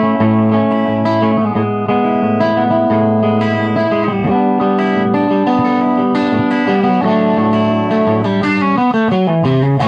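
Electric guitar played through a Ceriatone One perCentaur overdrive pedal into a Ceriatone tube amp, with the pedal's treble and burn knobs all the way down and output all the way up. It plays a run of ringing, lightly overdriven chords: a warm rhythm tone.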